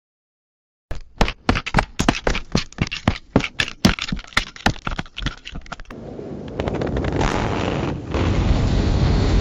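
Comical fart sound effects. Starting about a second in, there is a rapid string of short sputtering pops, about four a second. About halfway through this gives way to a long, steady, noisy blast that grows louder and dips briefly near the end.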